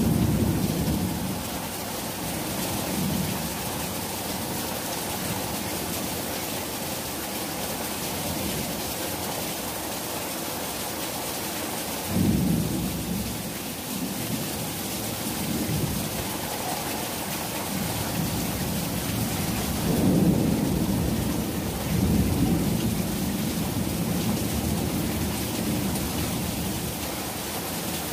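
Heavy rain pouring steadily onto a paved yard, with low rumbles of thunder swelling up at the start, about twelve seconds in, and again around twenty seconds.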